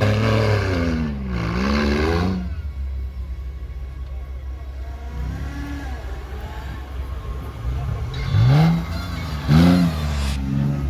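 Off-road 4x4's engine revving, its pitch falling and rising over a steady low rumble. Several quick, loud rising blips of the throttle come near the end.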